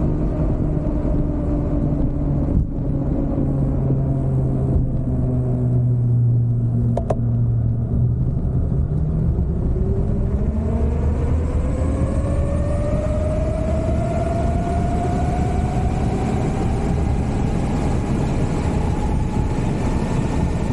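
Delfast Top 3.0 electric motorbike's motor whining under heavy wind rumble on the microphone. The whine sags a little in pitch at first, then from about halfway climbs steadily as the bike accelerates.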